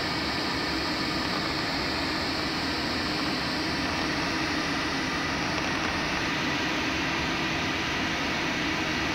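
Steady rush of air around a glider's canopy during an aerotow, with a steady drone beneath it.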